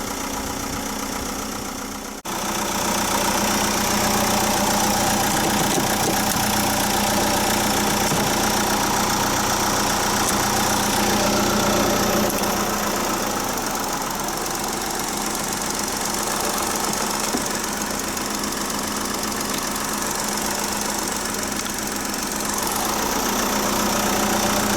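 Fiat Ducato motorhome's diesel engine idling steadily after a jump start, left running to recharge its flat battery. There is a brief break about two seconds in.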